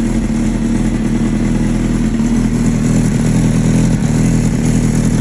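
Kawasaki ZX9R's inline four-cylinder engine running steadily, first start after nearly a year in storage.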